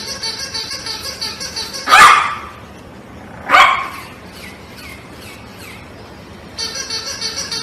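A dog barking twice, loud and sharp, about a second and a half apart. A fast, even, high-pitched chirping runs at the start and comes back near the end.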